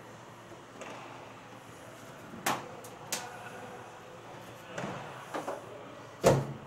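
Several metallic knocks and clinks as a long disconnected elevator control rod is handled and drawn out through the aircraft's fuselage frames, the loudest a sharp clank near the end.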